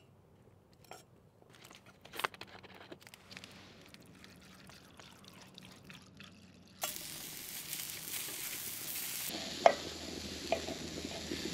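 Potato slices and mushrooms frying in a pan over a wood fire: a steady sizzle starts suddenly about seven seconds in, with a couple of clinks from a utensil turning the food. Before that, only faint small clicks from water being poured into a pot of sliced potatoes.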